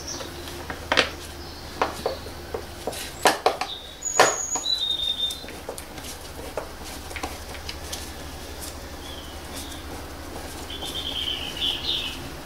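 Scattered clicks and knocks of a screwdriver working the Torx screws on a plastic air filter box, with a few high bird chirps in the background and a steady low hum.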